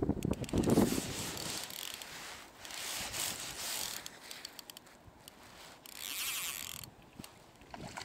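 Spinning reel on a feeder rod being wound in two short spells, its rotor and gears whirring. Wind buffets the microphone at the start.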